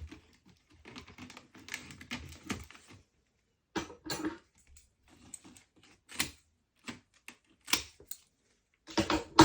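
Splint strands rustling and scraping as they are worked through a tight woven chair seat, followed by a string of sharp clicks and crackles from the stiff, brittle splint being pushed and bent.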